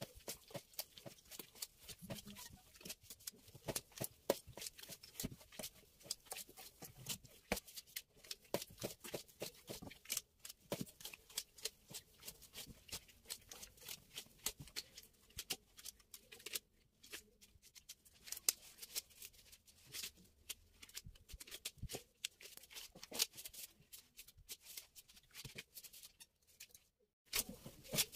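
Hands kneading and working soft, sticky semolina bread dough: a continuous run of quick, irregular sticky clicks and light pats.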